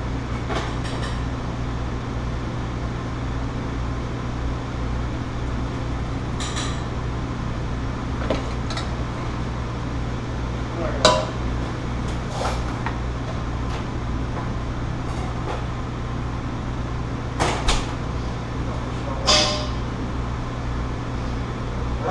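Commercial kitchen at work: a steady low hum of ventilation and equipment, with scattered clinks and knocks of pans, plates and utensils, the sharpest about eleven seconds in and a few more close together near the end.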